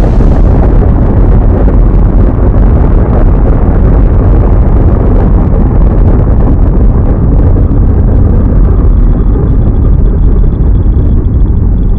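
Explosion sound effect's long, loud rumbling aftermath: a deep, steady rumble, its higher hiss fading out within the first second.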